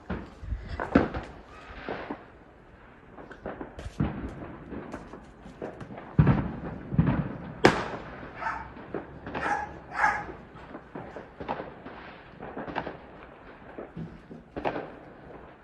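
Firecrackers going off in an irregular string of sharp bangs and crackles, the loudest about a second in and again between six and eight seconds in.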